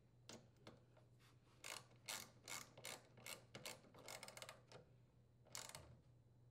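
Socket ratchet wrench clicking faintly as it drives in the mounting bolts of a washing machine's motor stator: a run of ratchet clicks, about two or three a second, quickening around four seconds in, then one last click near the end.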